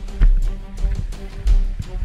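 Background music with a steady, heavy beat and deep bass.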